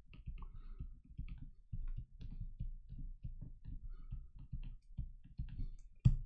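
Stylus clicking and tapping on a tablet's writing surface while numbers are handwritten, a quick, irregular run of light clicks.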